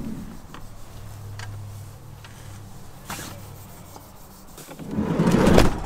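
Rubbing and handling noise with a few light knocks, then a loud rustling rush that swells up near the end.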